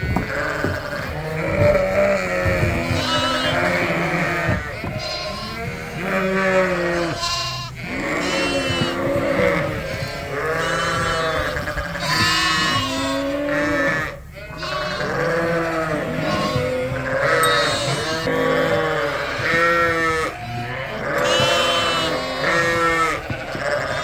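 A crowd of Suffolk ewes and lambs bleating over one another almost without pause, high lamb calls mixed with deeper ewe calls.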